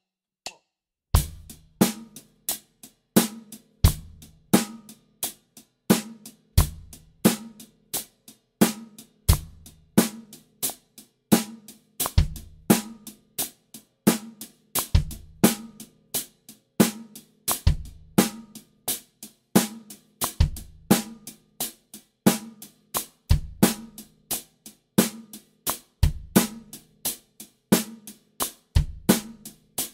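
Drum kit playing a groove: steady eighth notes on the hi-hat, accented snare backbeat on beats 2 and 4, and a single bass drum note placed on a different sixteenth from one exercise to the next. It starts about a second in and runs at about three hi-hat strokes a second.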